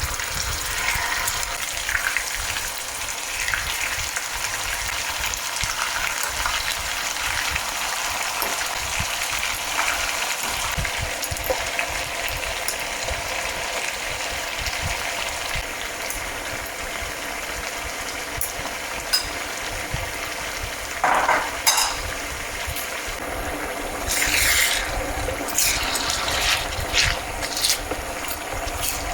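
Marinated chicken pieces sizzling steadily as they fry in oil on high heat, with a few short clatters of stirring, most of them in the last third.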